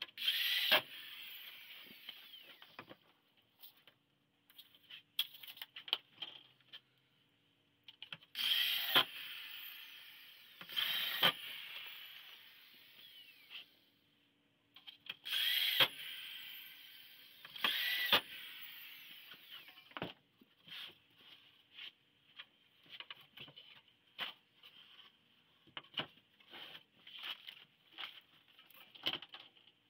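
Corded electric drill run in about five short bursts, each spinning up with a rising whine and then winding down. In the last third come light clicks and knocks of wooden jig parts being handled.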